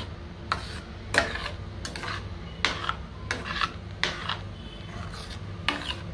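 A steel ladle stirring thin vegetable purée soup in a stainless steel pot, scraping across the bottom and sides in repeated strokes about every two-thirds of a second.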